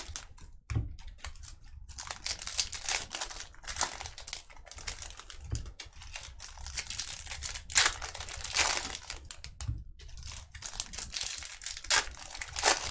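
Trading card pack wrappers being torn open and crinkled, a run of short crackling rustles with louder bursts about eight seconds in and near the end.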